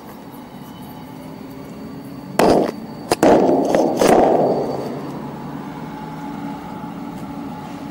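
Steady low rumble of an approaching diesel freight train, broken by loud sudden bangs and bursts of noise about two and a half to four and a half seconds in, the last fading away.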